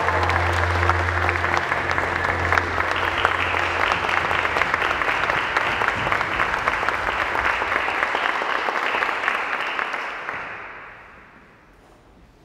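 Audience applauding, many hands clapping, while a low held music note fades out in the first few seconds. The applause dies away about ten seconds in.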